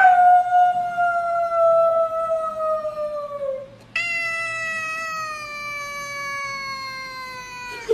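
Domestic tabby cat giving two long, drawn-out meows, each sliding slowly down in pitch; the second begins about four seconds in.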